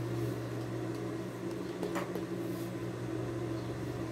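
Steady low motor hum, with a light tap about two seconds in.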